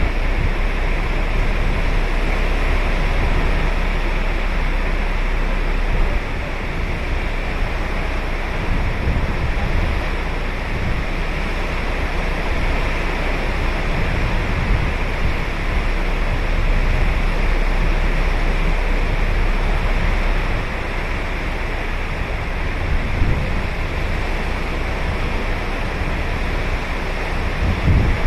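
Ocean surf breaking and washing on a beach, a steady rushing wash with a low rumble underneath.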